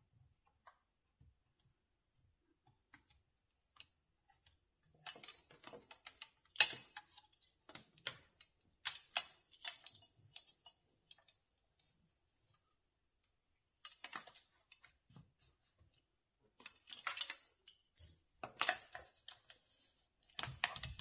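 Plastic and metal parts of a ring light and its tripod stand clicking and rattling as they are handled and fitted together, in short clusters of clicks with quiet gaps between.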